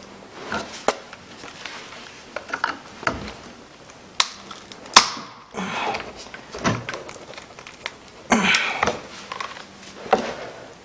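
A screwdriver prying at the plastic case and spiral-wound cells of an Optima AGM battery: irregular cracks, creaks and scrapes, the sharpest cracks about four and five seconds in and a longer rough scraping a little after eight seconds.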